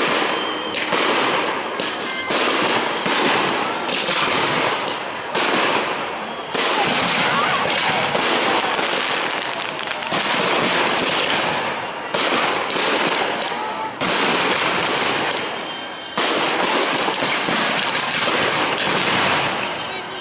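Fireworks display: aerial shells going off one after another, a sharp bang every second or so, with dense crackling in between.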